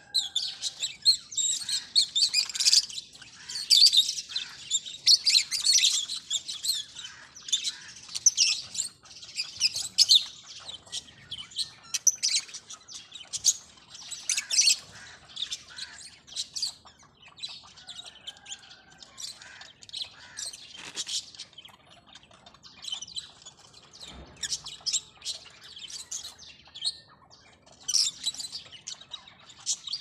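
Many lovebirds chirping in rapid, overlapping high calls, busiest over the first ten seconds and again near the end.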